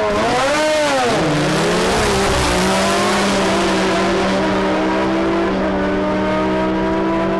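Snowmobile engine revving in swoops, then launching and running flat out at a nearly steady pitch as it accelerates away, with a motorcycle racing in the other lane.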